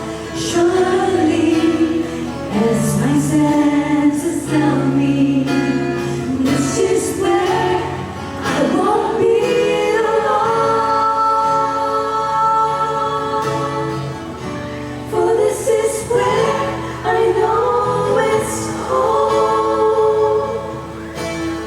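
A vocal group singing a song in close multi-part harmony, with sustained chords over a low bass line.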